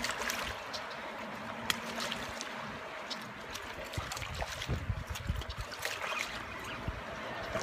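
Steady rush of river water flowing past the bank, with a few faint clicks and low buffets of wind on the microphone.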